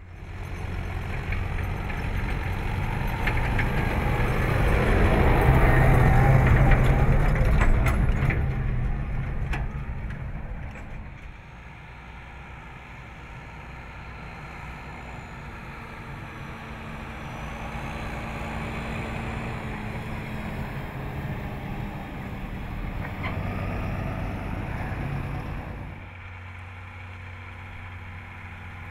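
John Deere tractors hauling silage trailers drive past with engines running. The engine and rolling noise swell to a loud pass-by about six seconds in, fade, and build again in a second, quieter pass, then drop abruptly a few seconds before the end.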